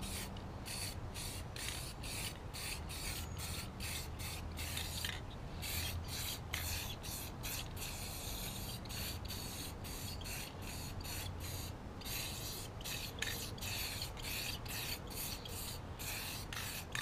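Aerosol spray-paint can spraying in quick repeated hissing bursts, about three a second. The can is nearly empty.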